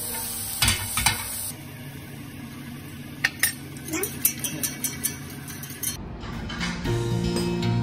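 Kitchen utensils clinking and scraping against cookware, a handful of sharp clinks over a few seconds. Background music plays in the first second and a half and comes back about six seconds in.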